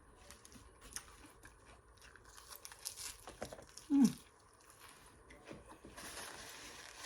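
Close-miked eating: chewing and crunching a mouthful of salad, with small wet clicks of the mouth. A brief low hum of the voice, falling in pitch, about four seconds in.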